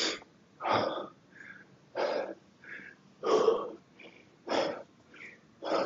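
A man breathing hard through his mouth, catching his breath after a set of heavy kettlebell swings: a loud exhale roughly every second and a quarter, with quieter inhales between.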